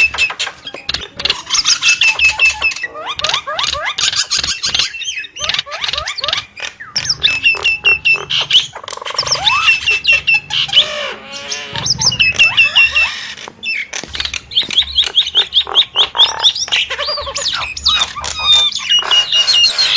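Nias starling singing a long, varied song: rapid chattering runs of high chirps and whistled sweeps, broken by clicks and short pauses, with some lower gliding notes in the middle.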